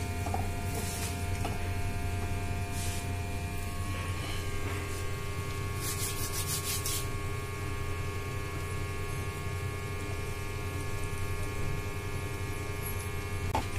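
A steady electrical hum with several fixed tones throughout. About six seconds in comes a short run of quick crackles, as warm puffed rice bound with jaggery syrup is squeezed into a ball between the hands.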